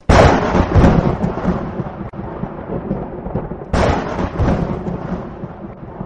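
Two thunderclaps. Each is a sudden crack followed by a rolling rumble that dies away, and the second comes a little under four seconds in.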